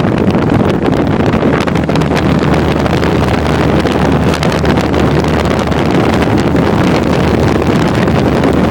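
Carrier 2-ton central air conditioner's outdoor condenser unit running, its fan discharging warm air that buffets the microphone in a loud, rough rush over a steady low hum.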